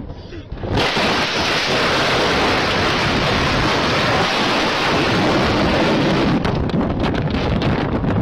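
A sudden, loud, steady rush of storm wind and rain noise around a vehicle as it leaves the highway and comes to a stop, with crackling knocks in the last couple of seconds.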